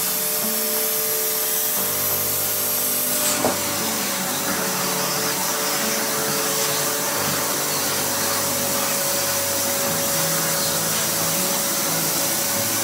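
Homstar HS VC2300 Turbo Power vacuum cleaner running steadily. A high whine in its sound stops about three seconds in, followed by a short click.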